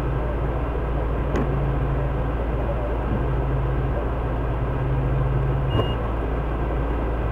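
Fire rescue vehicle's engine idling, heard as a steady low hum from inside the cab. A short high beep sounds about six seconds in.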